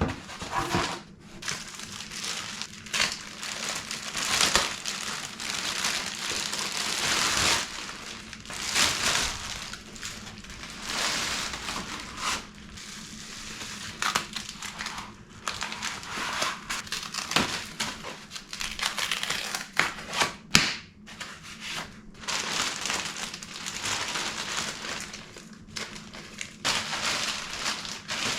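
Bike packaging being handled and pulled off: continuous crinkling and rustling of wrapping material, with a few sharp clicks and knocks.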